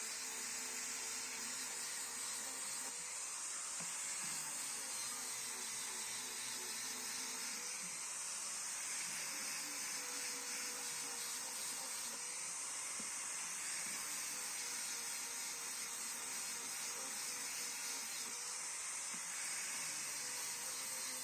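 A steady hiss, strongest in the high range, with a faint wavering tone beneath it and no clear rhythm or impacts.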